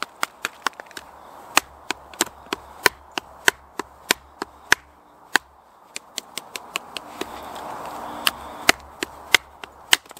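Wooden baton knocking on the spine of a knife to split a branch with a resinous fatwood core: a long run of sharp wooden knocks, about three a second, with a short pause a little past halfway.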